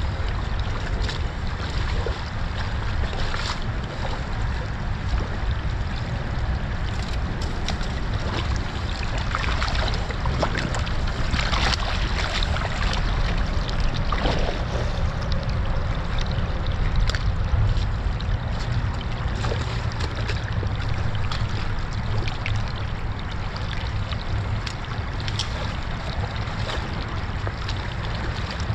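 Shallow creek water rushing steadily over sticks and debris where a small debris dam has just been broken open, with occasional splashes and a low wind rumble on the microphone.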